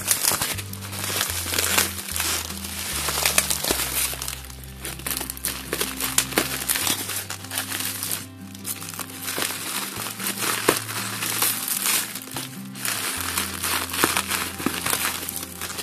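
Clear bubble-wrap plastic packaging crinkling and crackling in irregular bursts as hands handle and open it, over background music with a low, stepping bass line.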